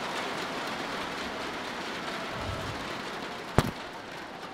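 Steady murmur of an arena crowd, with one sharp crack of a badminton racket striking a shuttlecock about three and a half seconds in.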